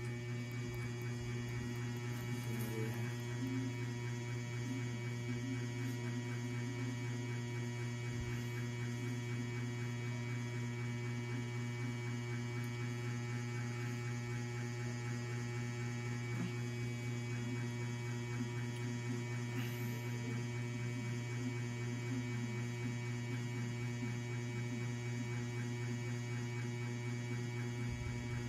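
A steady low electrical hum, with fainter steady higher tones over it.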